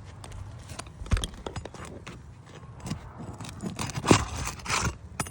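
Roof snake (flat shingle nail-removal bar) scraping and knocking under asphalt shingles as it works roofing nails loose, with irregular clicks and scrapes that grow busier near the end.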